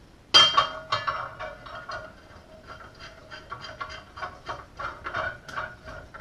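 Metal antenna mounting bracket parts being handled and fitted together: a loud ringing clank about half a second in, then a run of lighter irregular clicks and knocks.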